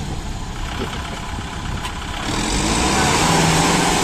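Kubota tractor's diesel engine running in a muddy paddy, revving up and growing louder about two seconds in as it works under load.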